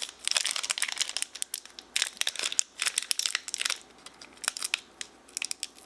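Foil Pokémon booster pack wrapper crinkling and being torn open by hand, in crackly bursts that thin out to scattered crackles near the end.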